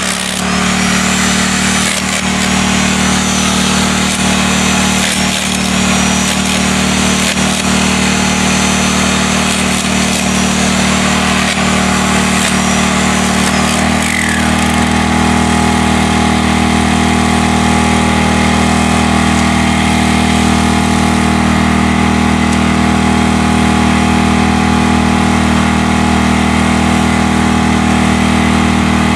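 A small engine running steadily, its note shifting slightly about halfway through.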